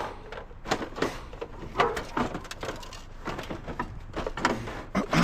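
Scattered knocks, clunks and scrapes of curbside scrap being handled, a few sharp hits spread over several seconds.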